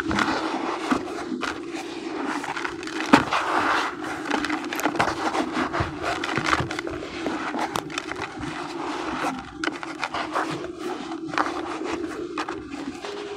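Damp sand squeezed and crumbled by hand in a plastic bucket: continuous gritty crunching and scraping with many small crackles, one sharper crunch about three seconds in. A steady low hum runs underneath.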